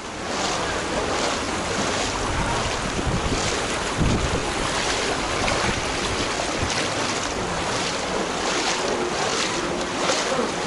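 Footsteps wading through shallow floodwater in a street, boots sloshing and splashing about twice a second, with wind buffeting the microphone, heaviest in the first few seconds.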